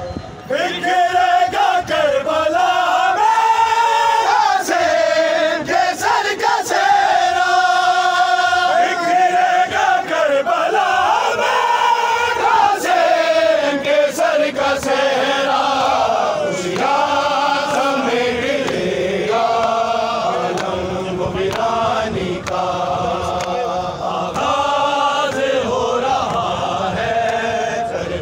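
Men's voices chanting a noha, a Shia mourning lament, together in long held lines that rise and fall in pitch.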